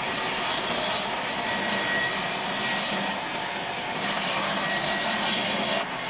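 Large vertical bandsaw cutting lengthwise through a thick live-edge wooden slab: a steady whir of the running blade and the cut, with a faint high whine that comes and goes.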